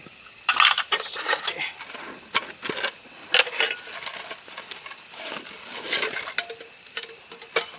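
Irregular rustling and light clattering, with scattered clicks, as camp cooking gear and bags are handled. Crickets chirp steadily behind it.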